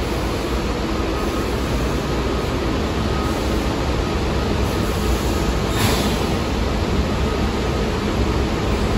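R62A subway train standing at an underground platform, its equipment giving a steady low hum and rush of noise. A short hiss comes about six seconds in.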